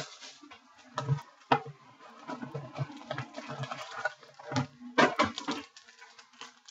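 Hands handling and moving sealed cardboard boxes of trading cards on a table: scattered knocks and light rustling of the packaging, with the clearest knocks about a second in and again near five seconds.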